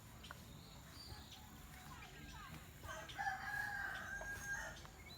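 A rooster crowing once, a single call of nearly two seconds starting about three seconds in.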